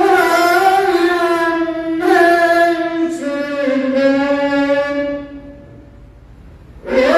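Qur'anic recitation in the melodic tajweed style by a young boy's high voice, drawn out on long held notes. The phrase ends about five and a half seconds in, and after a breath-length pause the next phrase begins near the end.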